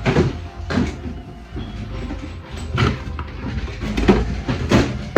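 Irregular knocks and clatter of objects being picked up and moved about by hand, the loudest about four seconds in, as if rummaging for a small tool.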